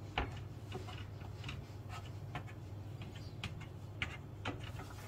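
A fork pricking holes in a pressed-out pizza base on a baking tray, docking the dough so it does not puff up. It makes light, irregular taps and clicks, about ten in all.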